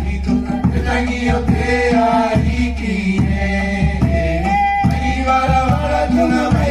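A song in a Polynesian language, with singing over a steady instrumental accompaniment.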